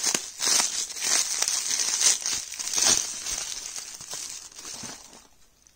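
Bubble wrap crinkling as it is handled and cut open with scissors. The crinkling is irregular, loudest in the first three seconds, and dies away about five seconds in.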